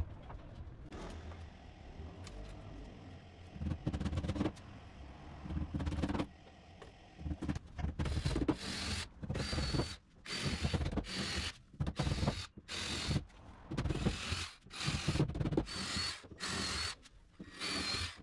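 Cordless drill-driver running in about a dozen short bursts with a high motor whine, driving screws into MDF drawer fronts. Before that, a few brief rattles and knocks.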